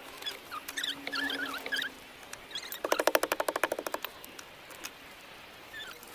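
Small animals chirping in short, wavering peeps, with a loud call of rapid pulses, about twenty a second, lasting about a second near the middle.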